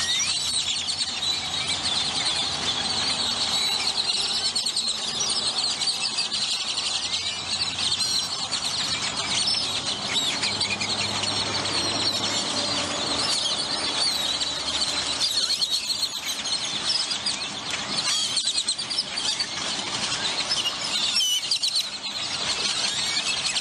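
A large flock of great-tailed grackles calling all at once: a dense, unbroken chatter of squeaks and clicks, with a few rising whistles standing out.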